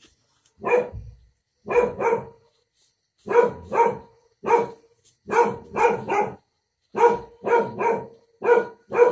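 A dog barking repeatedly, short barks often coming in pairs, one or two a second.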